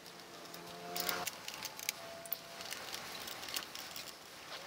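Scattered light clicks and taps of hands working at a motorcycle's plastic tank side fairing panel and its screws to take it off.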